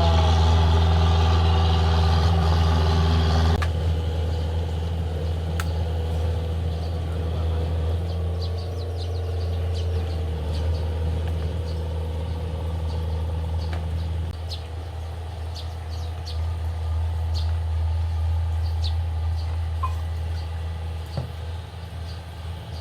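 A steady low motor or engine hum, loud for the first few seconds and then suddenly quieter, running on, with faint short high chirps or ticks over it.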